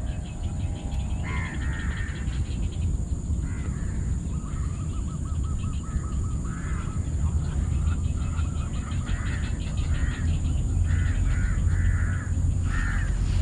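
Birds calling repeatedly, with short harsh calls about once a second and a quick run of repeated notes partway through, over a steady low rumble.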